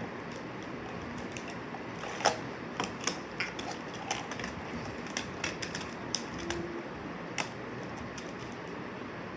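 Plastic magnetic building blocks clicking and clacking against each other as they are handled and snapped together: irregular sharp clicks, the loudest about two seconds in, over a steady low room hiss.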